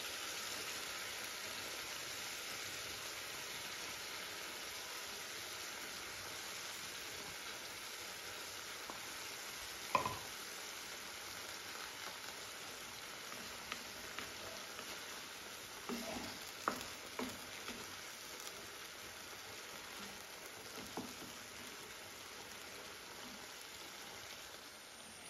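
Boiled tapioca pieces sizzling gently in hot coconut oil in an iron kadai, a steady hiss that slowly fades. A wooden spatula knocks against the pan now and then, loudest about ten seconds in, with a few lighter knocks after.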